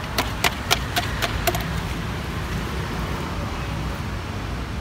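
A run of sharp metallic clicks, about four a second, stopping about a second and a half in, over a steady low rumble of road traffic.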